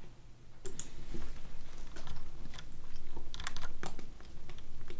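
Irregular light clicks of a computer mouse being clicked and handled, with a few keyboard taps, coming in small clusters.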